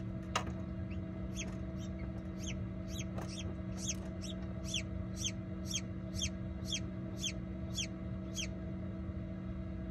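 Silkie chick peeping from inside its pipped egg as it hatches: a steady run of short, high peeps, each falling in pitch, about two a second, starting about a second in and stopping near the end. The peeps sound as if the chick is getting mad while it pushes through the shell membrane.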